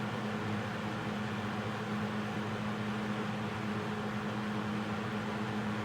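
Manning Bowman 12-inch box fan (McGraw-Edison model 12509) running steadily on high speed: a constant rush of moving air over a steady motor hum.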